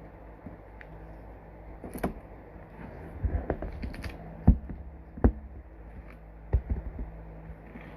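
Album packaging and its contents being handled: a string of irregular taps, clicks and light rustles, the loudest two knocks about halfway through, over a steady low hum.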